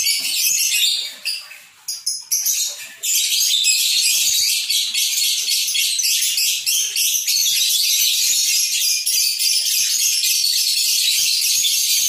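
Caged lovebird ngekek: a long, fast, high-pitched chattering trill, broken by a short pause about a second in, then running on without a break.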